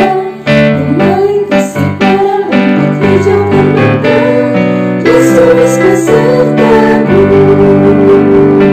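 Worship song: a singing voice over piano-like keyboard accompaniment, with held chords and a continuous melody.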